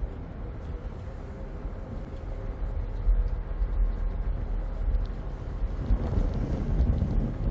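Passenger ferry under way: a steady low engine and water rumble, with wind buffeting the microphone on the open deck. The rumble and wind grow louder about six seconds in.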